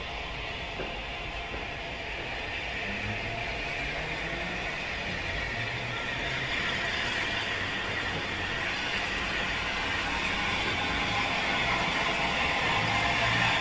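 Bulleid Battle of Britain class steam locomotive No. 34072 257 Squadron approaching slowly with its train, a steady rushing sound without distinct exhaust beats that grows louder as it nears.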